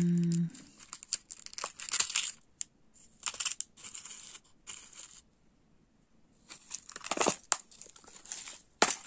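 Tiny metal charms clicking and rattling in a plastic compartment box as fingers pick through them, with plastic crinkling and handling noises in irregular short bursts and a louder rustle about seven seconds in.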